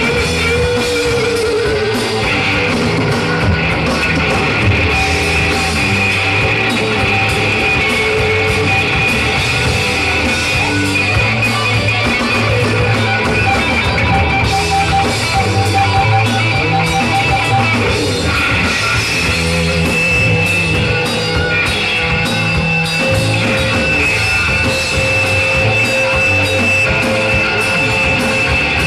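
Live rock band playing loud with electric guitars, bass and drum kit, including long held guitar notes, recorded from within the audience.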